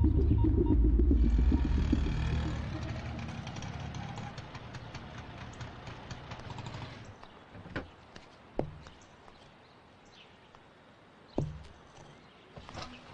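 A vehicle engine running with a low throb, loud at first and then fading away over several seconds. After it, a few short thuds.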